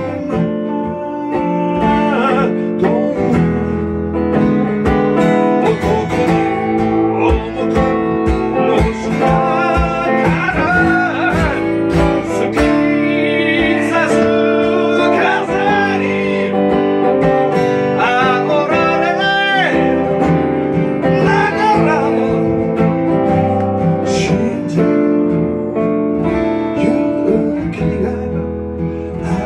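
A song played on guitar, with a singing voice over it.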